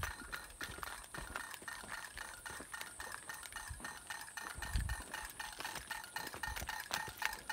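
Wind-spun pinwheel (kincir) at a mountain hut, turning and clacking in a rapid, even rattle. A low thump about five seconds in.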